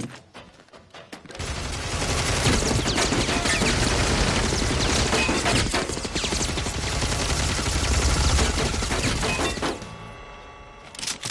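Film gunfire: a long, dense volley of rapid shots from several guns, starting about a second in and stopping abruptly near the ten-second mark, after a few scattered shots at the start. One more sharp crack comes just before the end.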